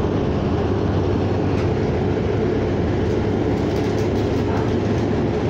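Cabin noise of a city transit bus under way: a steady low rumble of engine and tyres on the road, with scattered light rattles.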